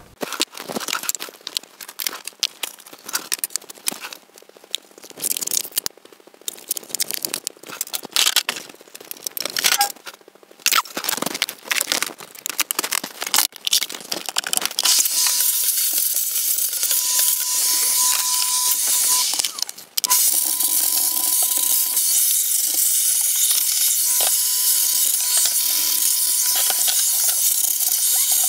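Quick clicks and rattles of computer parts being handled, then from about halfway a vacuum cleaner runs with a steady hiss and a thin whine, sucking dust off a PC case fan; it cuts out for a moment and starts again.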